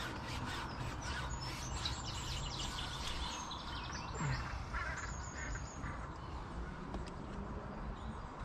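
Birds chirping and calling, thick and rapid for the first few seconds and thinning out after that, over a low steady background rumble.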